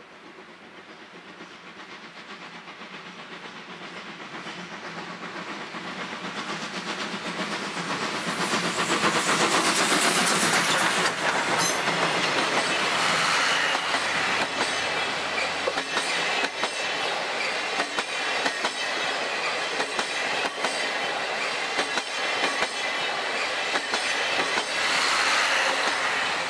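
JNR Class C57 steam locomotive working under steam, its exhaust beats growing louder as it approaches and draws level about nine seconds in. Then its 12-series passenger coaches roll past with a steady clickety-clack of wheels, fading quickly as the last coach goes by near the end.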